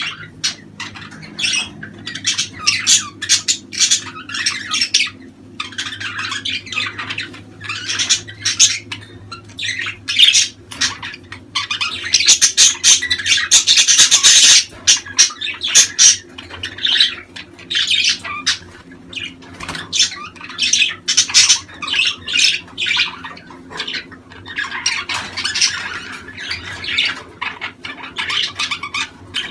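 Budgerigars in mating-season chatter: rapid squawks, chirps and warbling without pause, swelling into a dense, loud stretch of continuous chatter about halfway through. A faint steady low hum lies beneath.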